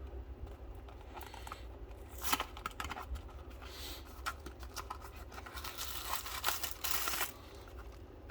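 Cardboard-and-plastic blister pack of a small diecast car being torn open by hand: scattered clicks and crinkles, with louder tearing rasps about two seconds in, near four seconds and from about six to seven seconds.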